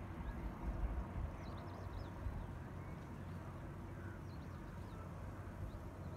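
Wind rumbling on the microphone outdoors, with a few faint clusters of high bird chirps.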